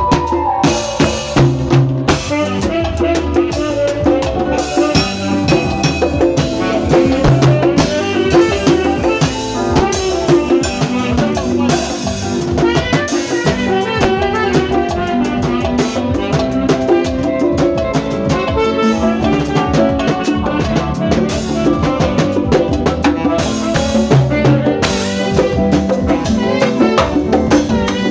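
A live band playing continuous dance music: a drum kit keeping a steady beat under electric keyboard and electric guitar.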